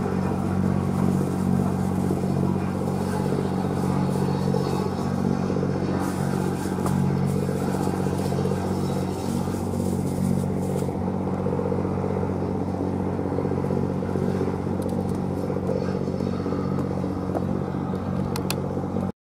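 A boat's engine running with a steady low drone, along with the rush of water and wind noise; it cuts off abruptly near the end.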